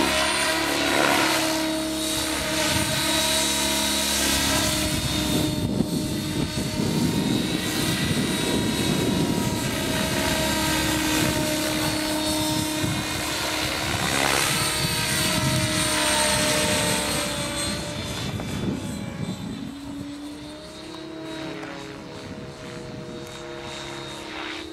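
Blade 700X electric RC helicopter flying 3D aerobatics: a motor and rotor whine that glides up and down in pitch over the whoosh of the blades, growing fainter over the last few seconds.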